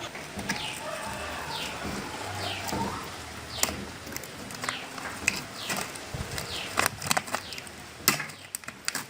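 Birds chirping: a run of short calls, each falling in pitch, with several sharp taps or clicks between them.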